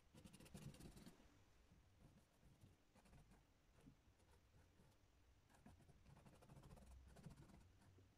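Faint scratching of a paintbrush stroking and dabbing oil paint onto a canvas panel, in short irregular bursts, busiest in the first second and again past the middle.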